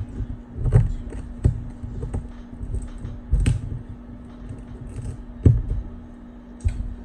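Irregular clicks, taps and knocks of hand tools working on an iPad mini 2 as its shattered glass and stubborn adhesive are pried off, with a few louder knocks, over a steady low hum.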